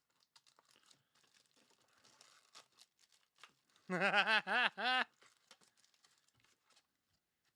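Foil trading-card pack wrappers crinkling and tearing, with cards being handled in soft, scattered clicks. A short pitched vocal sound, about a second long, rises above the rustling about four seconds in.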